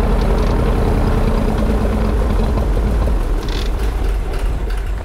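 Cessna 310's left piston engine running at low speed with a steady, even beat, then losing power about three seconds in and winding down as the propeller slows to a stop.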